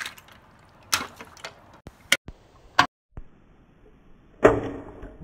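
Small plastic toy trains dropped into a clear plastic tank of water: a splash at the very start, a few sharp clicks and knocks, then a louder splash about four and a half seconds in that dies away.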